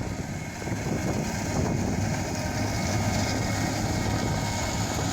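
A John Deere 2320 self-propelled swather running steadily while cutting canola. Its engine keeps an even, constant hum.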